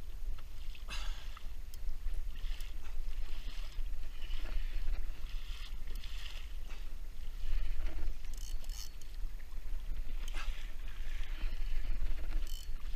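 Sea water splashing against the hull of a sit-on-top kayak moving through open-ocean swell, in irregular surges every second or two, over a steady low wind rumble on the microphone.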